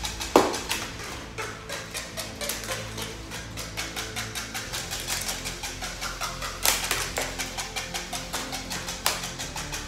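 Lego combat robots fighting: a fast, continuous plastic clattering and ticking from their spinning weapons and motors, broken by a few sharp hits as they collide, one just after the start and two more in the second half.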